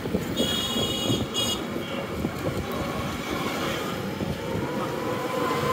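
Street traffic heard from a moving cycle rickshaw: a steady, dense rumble, with a high-pitched tone sounding for about a second near the start and a steady higher tone coming in near the end.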